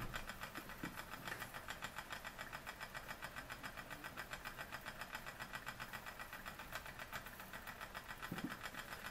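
Linemar J-5322 tinplate vertical-boiler model steam engine running under steam, very quiet: a soft, even chuffing and clicking at about five beats a second.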